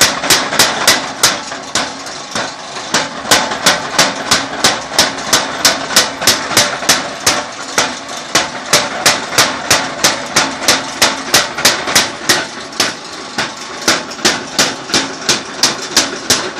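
Mechanical spring-type power hammer forging red-hot steel: a steady run of sharp hammer blows, about three a second, over the hum of the running machine.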